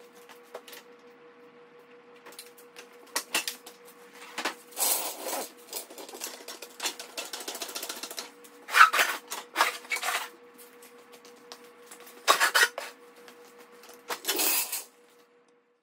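Hydraulic floor jack being worked to lift the front of a lawn tractor: clicks and a stretch of rapid rattling from the jack, then several louder clanks and scrapes as the front wheels are set onto plastic ramps. A faint steady hum sounds underneath.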